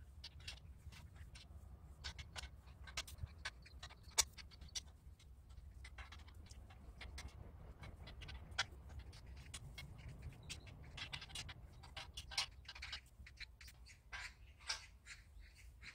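Irregular small clicks and taps of hand work on the joints of a steel-pipe greenhouse frame, one sharper click about four seconds in, over a low steady rumble.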